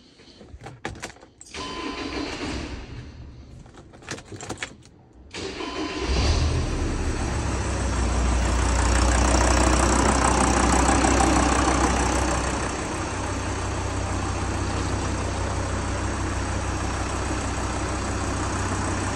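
A VW Crafter 2.5 TDI five-cylinder diesel engine being started after its timing belt and water pump were replaced. A few clicks are followed by cranking, and the engine catches about six seconds in. It runs loud for several seconds, then settles to a slightly quieter, steady idle about thirteen seconds in.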